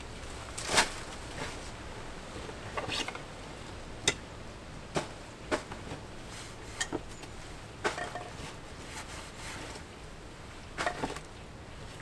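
Irregular sharp knocks, clicks and rustles of camping gear being handled at a pack on leaf-littered ground, about a dozen in all, the loudest about a second in.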